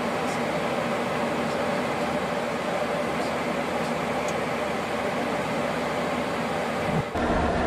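Steady airliner cabin noise at cruise: an even rush of air and engine drone with a faint hum. Near the end it changes abruptly to a heavier, deeper rush.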